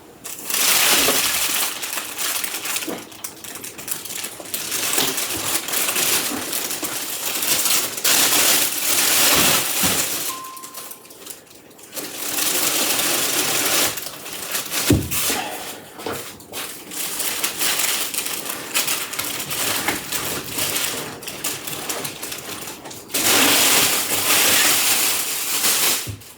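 Plastic packaging bags being pulled off and handled during an unboxing, crinkling and rustling in long loud bouts with a short lull about ten seconds in.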